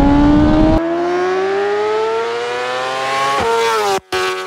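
A 2023 BMW M1000RR's inline-four engine through an Akrapovic titanium header and SC Project slip-on exhaust, with no catalytic converter, revving steadily higher under acceleration. The pitch falls at a gear change about three and a half seconds in, and the sound cuts out for a moment just before the end.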